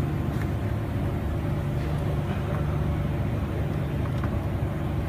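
Steady low background rumble with a few faint light clicks.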